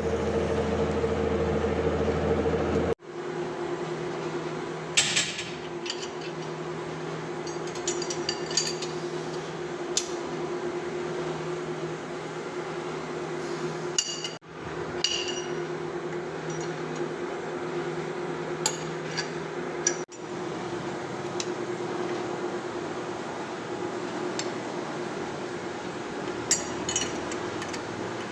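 Metal lathe running with a steady hum, with scattered sharp metallic clinks and taps. The hum changes abruptly about 3 seconds in and again near the middle, as between separate shots.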